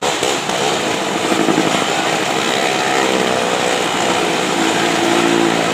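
Small engine running hard at high revs, its pitch wavering up and down as the vehicle circles the vertical wooden wall of a well-of-death motordrome.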